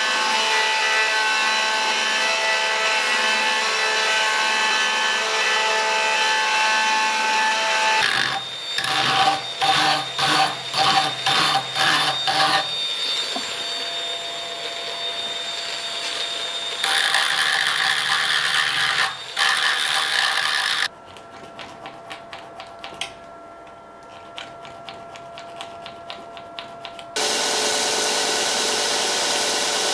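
Belt grinder running with a steel pommel pressed against the belt. After a cut come a series of short grinding strokes and a steady high whine from a handheld rotary tool with a burr shaping the steel wolf-head pommel. A much quieter stretch of faint ticking follows, and the belt grinder returns near the end.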